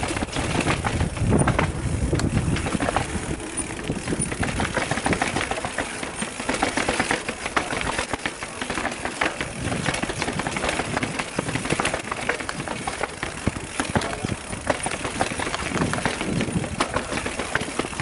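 Mountain bike rattling and clattering down concrete steps: a dense, continuous run of knocks from the bike jolting over each step edge.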